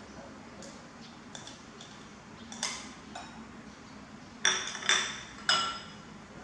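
Ceramic bowls and utensils clinking as small bowls are emptied into a mixing bowl: a few light taps, then three sharp, ringing clinks about half a second apart near the end.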